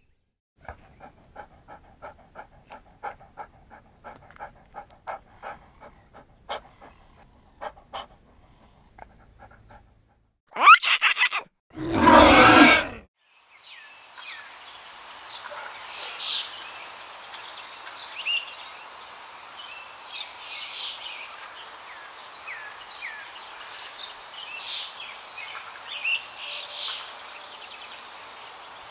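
A run of short, pitched animal-like calls, two or three a second, then a brief loud burst and a louder noisy blast a little after, then outdoor ambience with birds chirping over a steady background hiss.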